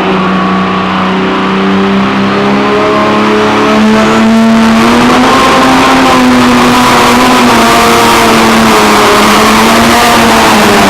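Competition pulling tractor's engine running hard at high revs, very loud. Its pitch rises slightly about four seconds in, then holds with small wavers.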